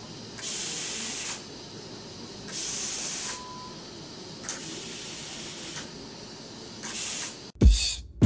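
Mercury Laser EFI fuel injectors firing on a bench test, spraying mineral spirits: four separate bursts of spray hiss, each about a second long, with short pauses between. Near the end, music with a heavy beat cuts in.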